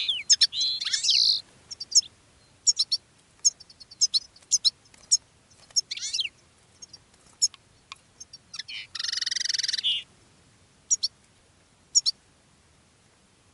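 Caged goldfinch and linnet call birds calling: many short, sharp high chirps, with a buzzy twittering song phrase near the start and a longer one about nine seconds in.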